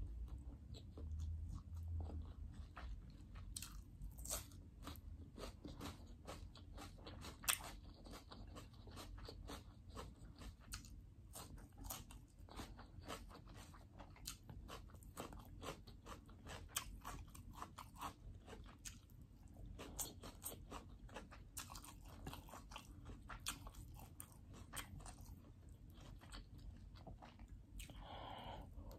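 Close-up eating sounds: a person chewing a mouthful of rice and meat, with many small crunches and wet mouth clicks in a steady irregular run.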